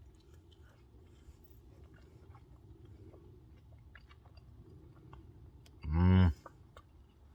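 A man chewing a mouthful of fajita wrap, with small wet mouth clicks. About six seconds in comes one short, loud hummed "mmm".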